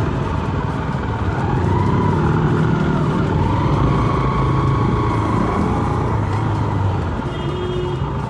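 Several motorcycle engines running at low speed in slow traffic, a steady low rumble with pitch rising and falling a little as throttles open and close.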